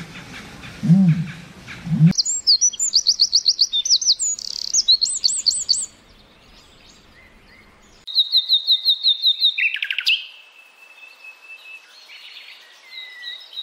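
A short low animal call at the start, cut off abruptly after about two seconds. Then a wren sings a loud, rapid trilled song of high repeated notes, and after a short pause a common nightingale sings fast repeated notes, a falling sweep and drawn-out whistles.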